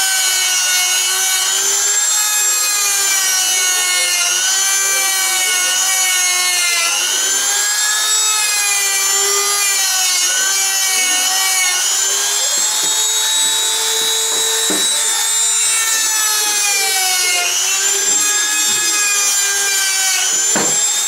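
Handheld rotary tool spinning a felt polishing wheel against black-painted metal, buffing the paint for a worn, weathered look. Its motor whine dips in pitch and recovers every few seconds as the wheel is pressed on and eased off, with a few light knocks near the end.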